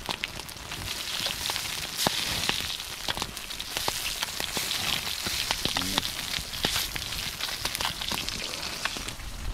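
Walleye fillets sizzling in oil in a frying pan over a campfire, a steady hiss with many small sharp pops throughout.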